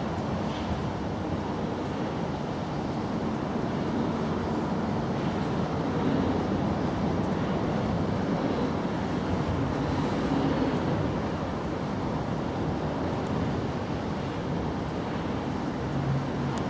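Steady low rumbling background noise of the outdoors, with no distinct events.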